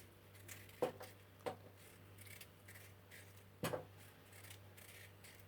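Quiet handling sounds: a few soft clicks and knocks, about a second in, a second and a half in, and a louder one near four seconds in.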